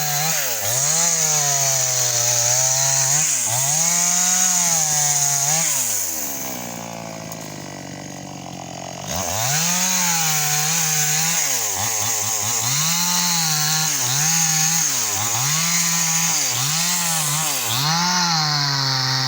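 Chainsaw cutting wood, its pitch dipping and recovering about once a second as the chain bites. About six seconds in it slows to idle for roughly three seconds, then revs up and cuts again.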